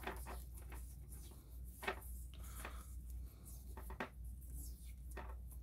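Faint handling noises from a spliced, taped coaxial cable being handled: light rubbing with a few sharp clicks, the clearest about two seconds and four seconds in.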